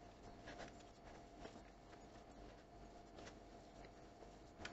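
Near silence: a few faint, soft taps and rustles of hands mixing mashed potato with spices in a bowl.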